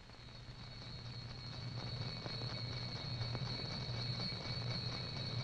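Old film soundtrack noise: a low hum with crackle and a faint steady high whine, growing gradually louder, just before the opening music starts.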